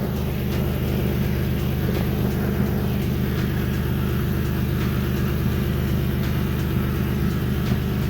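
Idling car engine heard from underneath the car: a steady low exhaust hum with faint irregular ticks. The exhaust is leaking at the front joint of newly fitted test pipes, which the owner puts down to bolts not fully tightened on the new gaskets.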